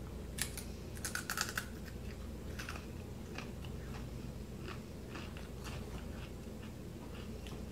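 Dry honey graham cereal pieces crunching as they are bitten and chewed, with a burst of crisp crunches in the first second and a half, then fainter crunches.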